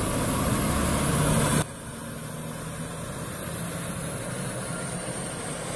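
A steady low engine hum under outdoor noise, dropping abruptly about one and a half seconds in and running on more quietly.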